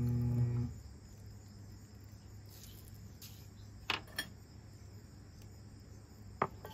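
Crickets chirping faintly in the background. A steady electric hum cuts off under a second in, and a few light clicks follow near the middle and near the end.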